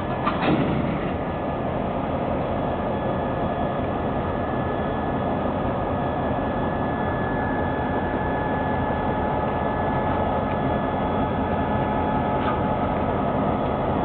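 EMD GP38-2 diesel locomotives running steadily, a constant engine rumble with a thin steady whine over it. A short knock comes about half a second in.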